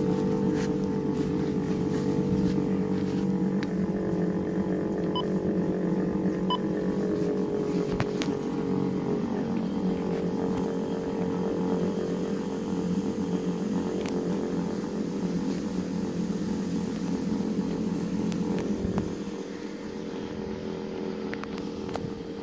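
Federal Signal STH-10A outdoor warning siren sounding a steady tone during a test. The sound drops a little in level about nineteen seconds in.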